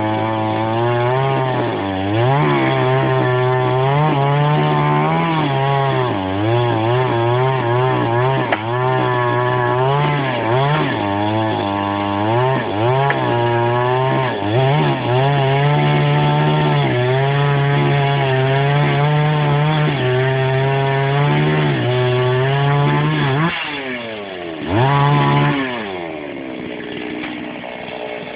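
Chainsaw cutting wood, its engine pitch sagging and recovering again and again as the chain bites under load. About 23 seconds in it drops back, revs up briefly once, then settles to a lower idle.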